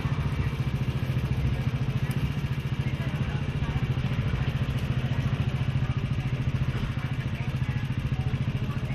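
Engine idling close by, a steady low throbbing hum with a fast, even pulse.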